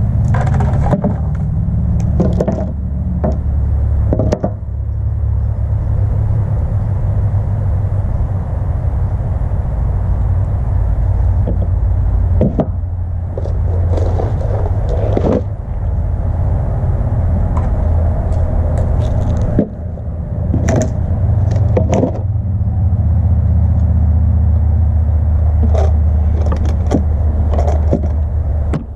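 A steady low rumble, with scattered knocks and clatters as hard objects are handled and set down on a plywood board.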